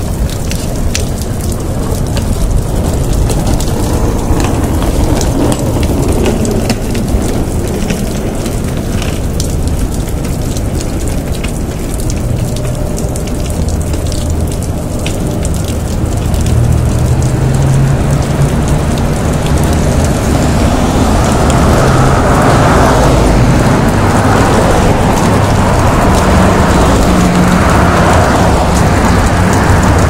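Meltwater from melting snow and ice streaming off a building's roof edge and splashing onto a wet sidewalk: a dense patter of falling drops like heavy rain, growing louder past the middle, with a low rumble underneath.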